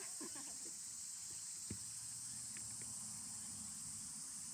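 A steady, high-pitched insect chorus, with a single short knock a little under two seconds in.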